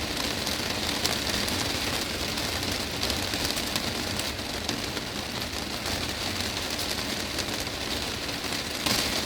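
Heavy rain drumming steadily on a glass greenhouse roof, a dense patter of countless drops, a little louder near the end.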